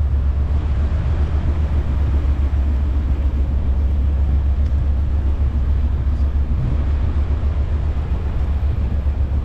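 Steady low rumble of street traffic, with a faint haze of city noise over it.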